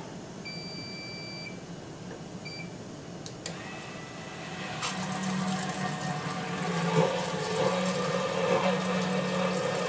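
Electronic alarm beeping from a Watchdog battery-backup sump pump unit: one beep about a second long, then a short one. A click follows, and about five seconds in a steady hum with rushing water noise comes in.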